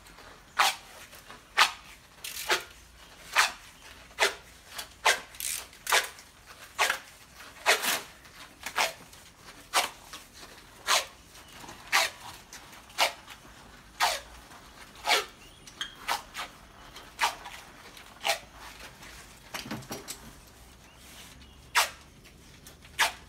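Tape being pulled off the roll in short, sharp rasps, about one a second, as it is wound around an air conditioner's refrigerant line set.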